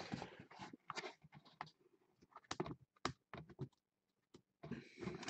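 Hands handling a cardboard box: irregular light clicks, taps and short rustles, quiet for a moment before a denser rustle near the end.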